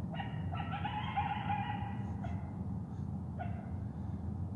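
A distant coyote-like howl: a short call at the start, then one drawn-out howl that rises slightly and falls away, and a brief yip about three and a half seconds in. The caller takes it for a Bigfoot imitating a coyote, not a real coyote. Heard over a steady low hum.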